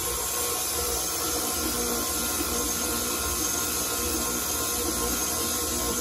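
Stand mixer motor running steadily, its flat beater turning a wet glue-and-cornstarch slime base in a stainless steel bowl.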